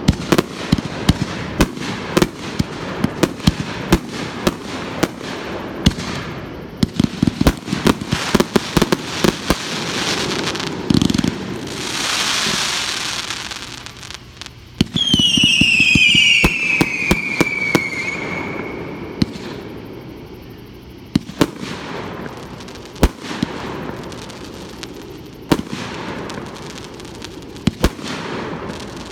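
Fireworks going off: a rapid, irregular crackle of sharp pops and bangs, with a rushing hiss about twelve seconds in. About halfway through a loud whistle sounds, falling steadily in pitch over about three seconds.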